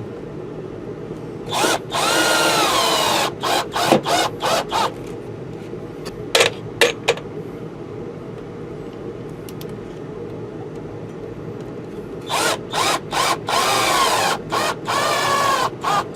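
Power drill driving screws into wood: a run of the motor about two seconds in, a few short trigger blips, then a longer run from about twelve seconds, its whine rising and falling in pitch as the screws bite.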